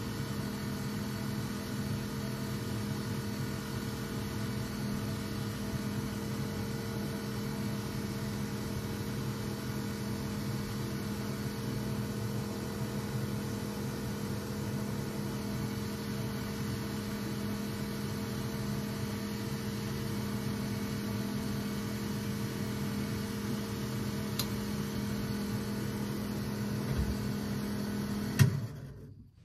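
Electric fan running with a steady humming whir, which she calls such a noisy fan. It stops suddenly with a click near the end, as if switched off.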